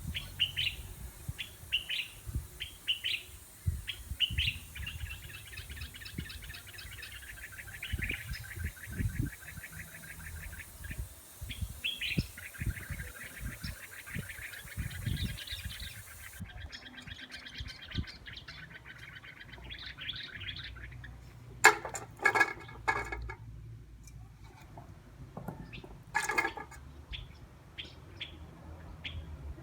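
Small bird chirping in short repeated notes and fast trills, with low taps and knocks underneath. A few louder, sharper sounds stand out about two-thirds of the way through.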